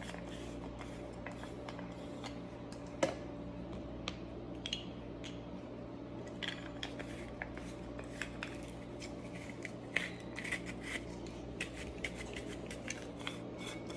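Handheld plastic pill crusher being twisted to grind a large tablet: an irregular run of small clicks and crunches, with a sharper click about three seconds in and another near ten seconds.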